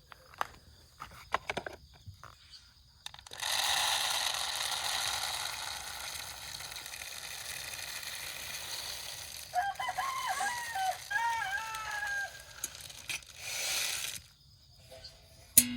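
A rooster crows once, one call in four parts, about two-thirds of the way through, over a steady hissing noise that starts a few seconds in and stops near the end. Light clicks and knocks come before the hiss.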